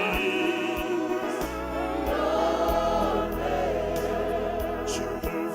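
Gospel worship song sung by a group of voices with instrumental accompaniment, the singers holding a long note between lines. A deep bass note comes in about a second and a half in.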